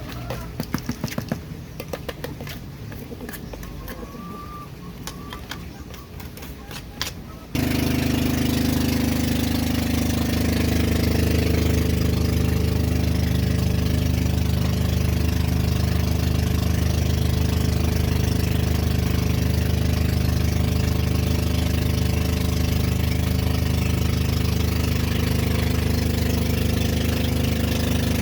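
Scattered clicks and knocks, then an engine suddenly comes on about a quarter of the way in and runs steadily.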